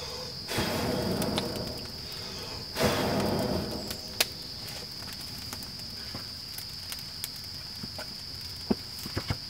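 A person blowing long breaths into a small wood campfire to feed it air, twice in the first four seconds, against a steady high insect trill. Near the end come a few light knocks as a log round is set down at the fire pit's edge.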